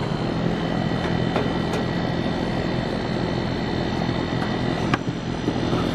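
Goodman outdoor air-conditioning unit running with a steady machine hum.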